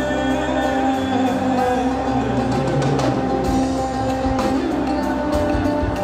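Live fusion rock band playing: electric guitar and bass with drums, and a man singing long held notes over them.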